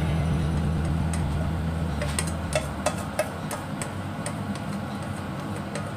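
A spatula scraping batter out of a stainless steel bowl into a frying pan, with a run of light clicks and taps against the metal from about two seconds in. A low steady hum underneath fades away in the first half.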